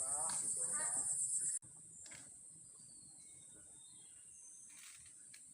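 Forest insects buzzing high and loud in a pulsing chorus, with people's voices, which cuts off suddenly about a second and a half in; after that a fainter, steady insect buzz goes on.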